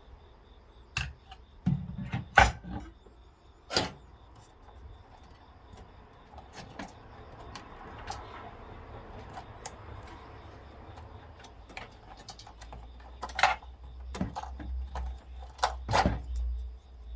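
Irregular sharp clicks and knocks of computer hardware and case parts being handled, with a low rumble of handling noise in the last few seconds.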